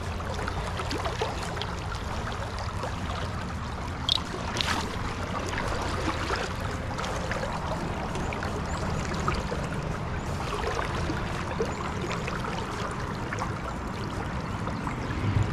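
Tailwater river current flowing steadily, with two brief clicks about four seconds in.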